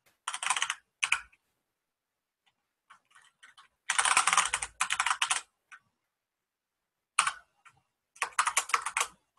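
Typing on a computer keyboard: quick bursts of keystrokes with pauses of a second or more between them, the longest burst about four seconds in.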